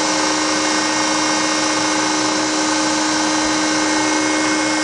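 Shigiya GU-30B-100A universal cylindrical grinder running an automatic internal (ID) grinding cycle, its high-speed ID grinding spindle making a steady whine as the infeed works the bore down to size.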